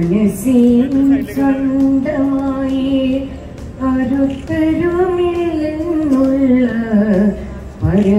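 An elderly woman singing a devotional invocation prayer solo into a microphone, in long held, gliding notes, with a short pause for breath about halfway through and another near the end.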